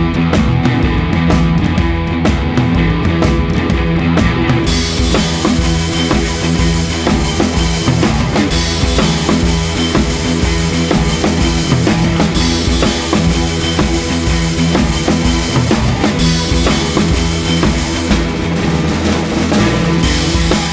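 Rock music with a full drum kit and guitar, at a steady beat; the drums come in fully about five seconds in.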